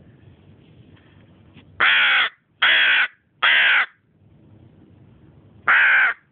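Hooded crow cawing: three loud, harsh caws in quick succession, then a fourth a couple of seconds later.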